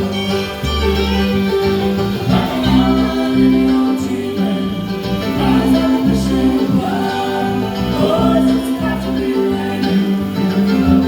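Band playing a country-bluegrass style song led by plucked acoustic guitar, over a steady low bass line.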